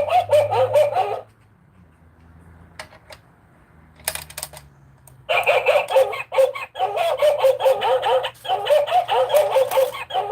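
Electronic children's toy playing recorded, cartoon-like animal sounds: a short burst at the start, a few clicks, then a longer unbroken run from about five seconds in.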